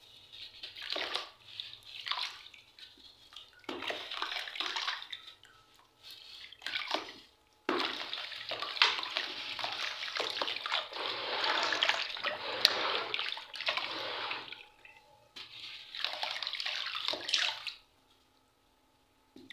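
Crumbled charcoal bars pouring from the hands and splashing into a basin of water, in short splashy bursts and then one long continuous pour in the middle. The pouring stops about two seconds before the end.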